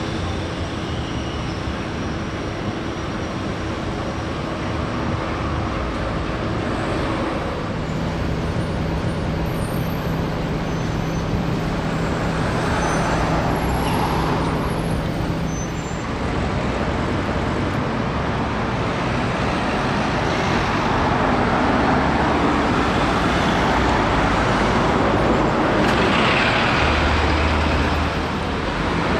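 Street traffic with Volvo B5LH hybrid double-decker buses running past. A steady engine hum rises and falls over the traffic noise.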